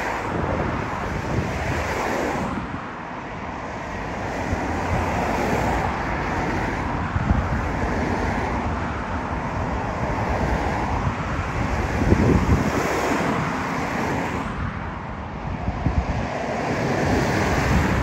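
Strong wind buffeting the microphone in gusts, over the distant rumble of a jet airliner's engines as it slows and rolls out on the runway after landing.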